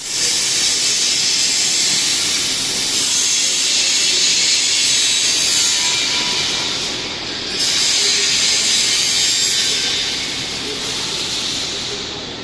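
CNC plasma torch cutting steel profile: a loud, steady hiss of the plasma arc, easing briefly about seven seconds in before picking up again.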